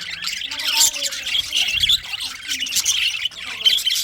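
Budgerigars chirping and chattering, a dense stream of short, rapid overlapping calls.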